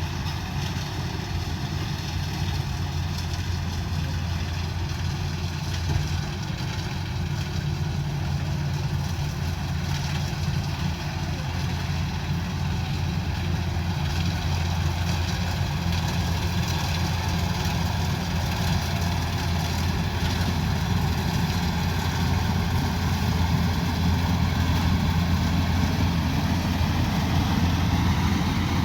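Kubota combine harvester's diesel engine running steadily, a constant low hum with a slight shift in pitch near the end.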